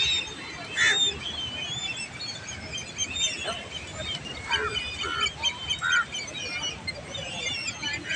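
A flock of birds calling, with many short overlapping chirps and whistles and a few louder arching calls among them.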